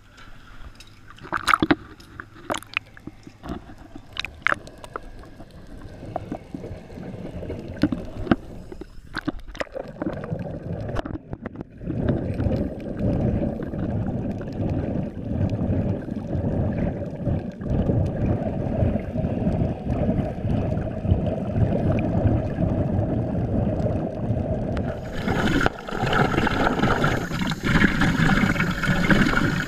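Water sloshing with sharp knocks and splashes as the sea surface closes over, then steady underwater bubbling and gurgling from air escaping a sea-walking helmet, heard underwater.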